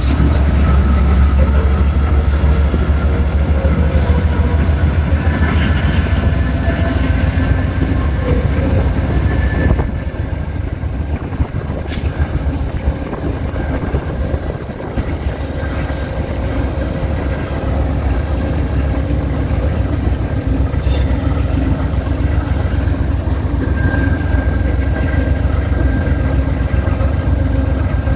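Amtrak passenger train rolling past: a heavy, steady diesel locomotive rumble for about the first ten seconds, then quieter, continuous rolling noise of the passenger cars going by.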